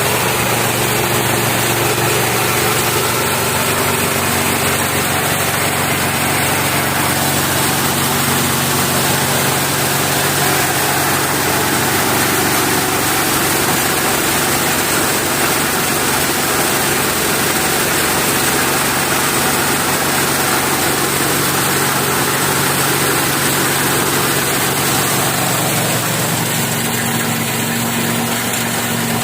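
KD-580S rice milling machine running steadily, driven by its 7.5 HP Mgx-210 engine.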